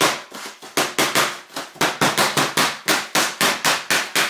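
Rapid, sharp tapping on the metal-and-plastic barrel of a Sony 16-50mm f/2.8 SSM lens, about four to five taps a second, knocking it to loosen a jammed barrel.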